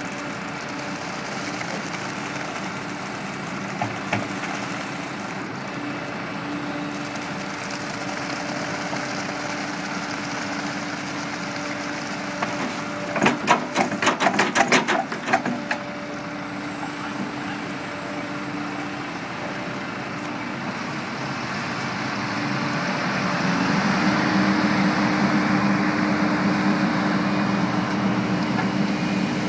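Diesel engines of a Hitachi 130 excavator and a concrete mixer truck running steadily. About halfway through there is a quick clatter of a dozen or so sharp knocks. Near the end the engine sound grows louder, with a steadier tone.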